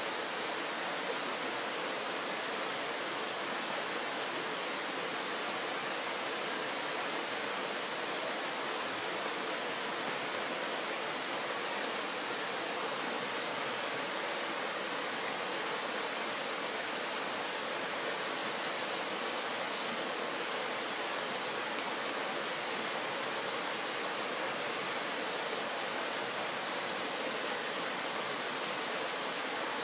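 Shallow mountain stream rushing steadily over a stony bed, a constant even hiss of running water.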